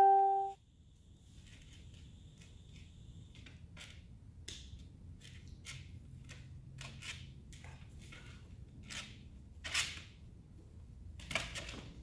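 A bell-like chime dies away at the start, followed by a string of sharp, irregular clicks, roughly two a second, with two louder ones near the end.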